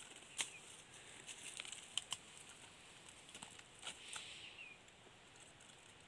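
Faint scattered clicks and light rustling of hands working twigs, soil and dry leaf litter while setting a small bird trap, with a few sharper ticks in the first two seconds.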